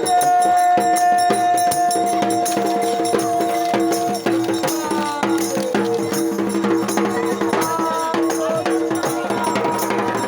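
Music with drums and rattling percussion over a steady drone, with one long held note through the first four seconds.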